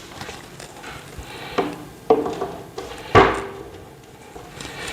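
Knocks and clatter of TV stand parts being handled and turned around, with three sharper knocks that ring briefly, the loudest about three seconds in.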